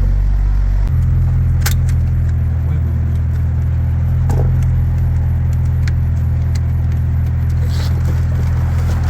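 A car idling: a steady low hum, with scattered clicks and light jangling of small parts or keys being handled.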